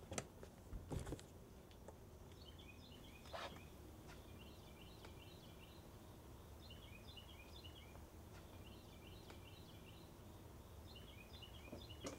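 A bird singing faintly, short phrases of quick chirping notes repeated about every two seconds. A couple of sharp thumps come in the first second, and another near the middle of the first phrases.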